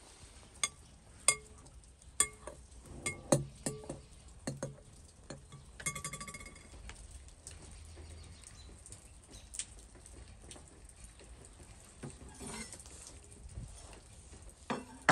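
Sharp clicks and light knocks of string and hands working a whole stuffed fish on a metal tray as it is tied up, several in the first few seconds and fewer later. A brief pitched tone sounds about six seconds in.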